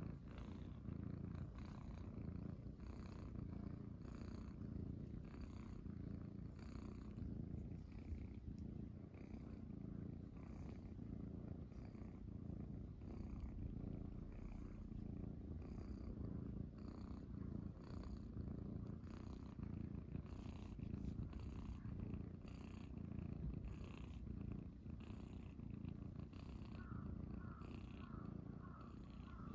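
Domestic cat purring steadily right at the microphone, a low, even, pulsing rumble that runs on without a break.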